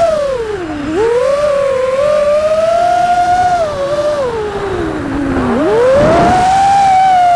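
FPV quadcopter's Botgrinder V4 1750kv brushless motors spinning Ethix Candy Kane props, a loud whine that rises and falls with the throttle. The pitch drops sharply about a second in and again about five and a half seconds in, then climbs back, with a brief rush of air about six seconds in.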